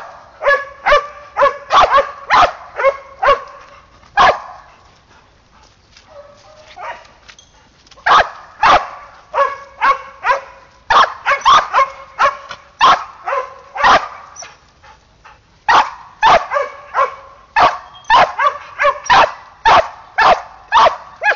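Protection-trained dog barking hard at a helper in a bite suit, its guarding bark in KNPV training. Quick, sharp barks come about two to three a second, stop for a few seconds near the start and briefly about two-thirds in, then start again.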